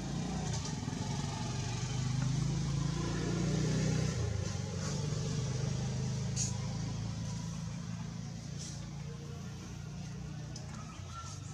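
A motor vehicle engine running, a steady low hum that swells about two seconds in and eases off after about five seconds. A few faint clicks.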